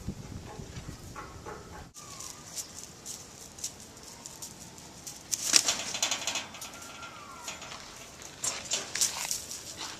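Farm birds: a couple of short falling calls, with bursts of rustling or wing-flapping about halfway through and near the end.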